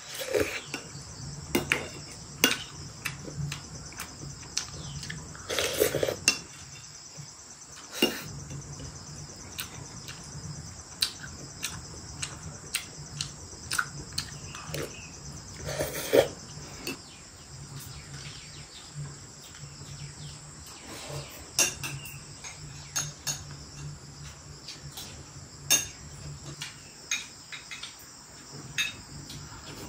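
Cutlery and dishes clinking, with sharp, irregular taps every second or so, over a steady chorus of crickets.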